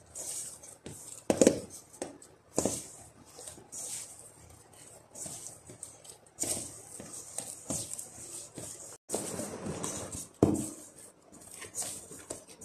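Sticky bread dough squelching and slapping as gloved hands knead it against the sides of a stainless-steel bowl, with a plastic glove rustling. The noises come irregularly, with a few louder sharp slaps.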